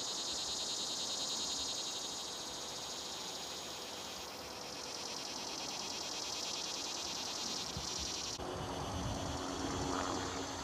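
A chorus of cicadas buzzing high and fast from the trees. About eight seconds in the sound changes abruptly: the buzz grows fainter and a low rumble with a steady hum comes in.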